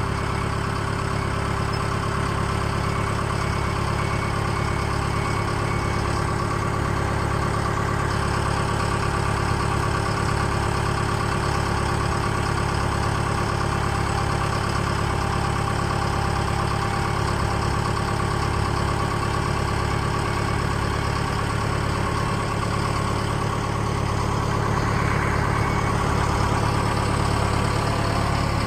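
Compact track loader's diesel engine idling steadily, a low even drone with no revving, growing slightly louder near the end.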